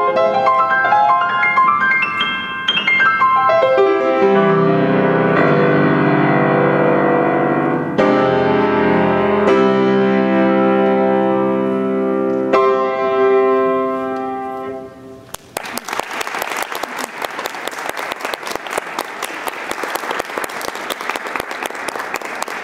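Grand piano playing the closing passage of a solo piece: quick runs of notes, then a few sustained chords struck and left to ring out. About two-thirds of the way through the piano dies away and an audience applauds.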